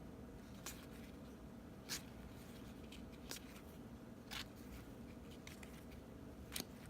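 Baseball trading cards being handled and flipped through, with about five faint, brief card snaps spread over a few seconds.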